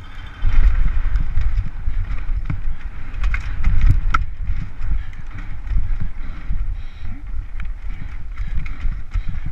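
Downhill mountain bike ridden fast over a rough dirt trail: wind buffeting the helmet camera's microphone over the rumble of the tyres, with frequent sharp clicks and knocks as the bike rattles over roots and rocks.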